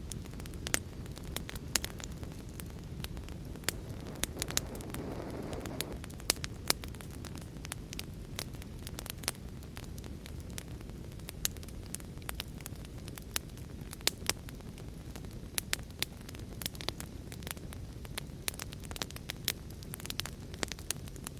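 Wood fire burning with frequent, irregular sharp crackles and pops over a steady low rumble of flame. A brief hissing swell comes about five seconds in.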